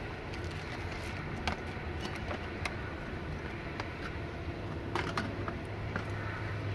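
Irregular light clicks and taps from small airsoft gearbox parts being handled, about seven in all with two close together near the end, over a steady low hum.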